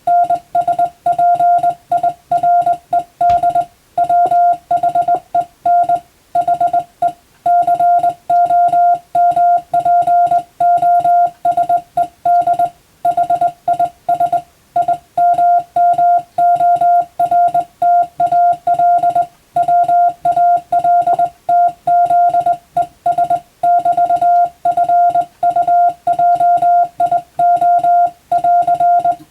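Morse code (CW) sent on a telegraph key, heard as a single mid-pitched beep switched on and off in rapid dots and dashes. It cuts off abruptly at the end.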